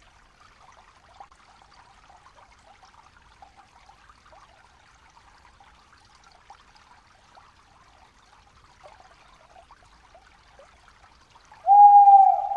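Faint, even water-like trickling hiss. Near the end a loud, steady high tone starts with a short upward slide and holds.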